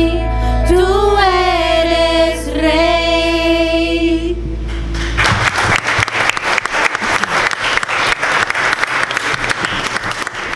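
Women's voices singing the last held notes of a worship song over a sustained bass accompaniment, ending about four seconds in. Then the congregation applauds.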